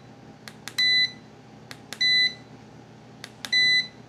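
Tesmen TSM-599 digital multimeter beeping at each press of its function button as it steps through its measuring modes: three short, high beeps about a second and a half apart, each just after a faint click of the button.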